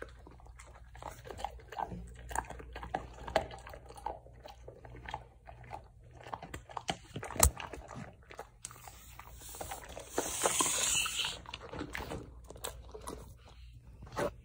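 A dog chewing a Greenies dental chew: a run of irregular crunches and bites, with one sharp crack about halfway through and a short rustling noise about ten seconds in.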